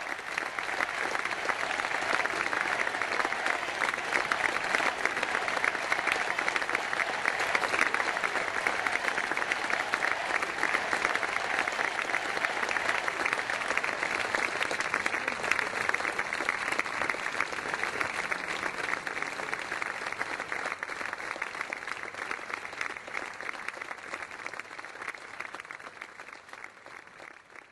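Large crowd applauding steadily after a speech, the clapping dying away over the last several seconds.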